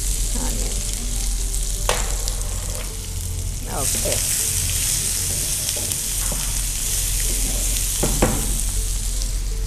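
Chopped onions and whole spices sizzling in hot oil in a nonstick frying pan as a tempering (tadka), stirred with a spatula. The sizzle grows louder about four seconds in, with a couple of sharp knocks of the spatula against the pan.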